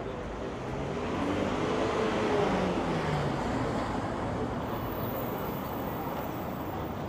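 Street traffic: a motor vehicle passing by, its noise swelling to a peak about two and a half seconds in and then easing back.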